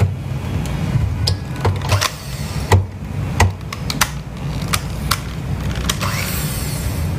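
Electric hand mixer running steadily with its beaters in a glass bowl of brownie batter, with scattered sharp clicks over the hum. The batter is being beaten until it turns pale, before the eggs go in.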